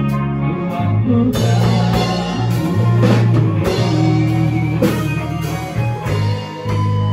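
A rock band playing live, with electric guitars, bass guitar and drum kit. The sound fills out in the highs about a second in.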